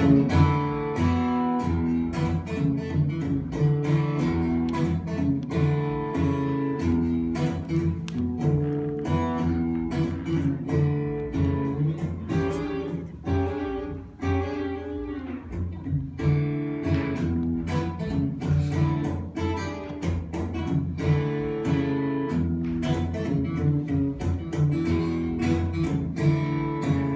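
Multitrack band recording played back over USB through a Yamaha TF5 digital mixer for a virtual soundcheck: continuous music with plucked string instruments, easing briefly about halfway through.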